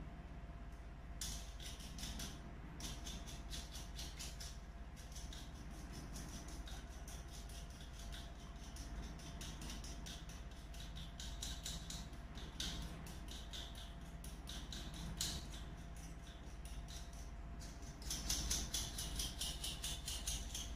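Small metal parts clicking and ticking in rapid, fine strokes as a nut is worked by hand onto a bolt through a plastic cooling-fan frame, with a louder flurry of clicks near the end, over a steady low hum.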